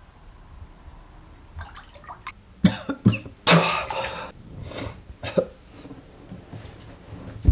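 A man coughing and choking several times after inhaling the wrong way, starting about two and a half seconds in. The longest, loudest cough comes in the middle, with a few shorter ones after it.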